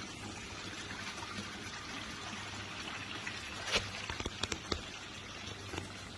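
Water from a garden fish pond's water feature trickling and splashing steadily over a low steady hum. A few sharp clicks come about four seconds in.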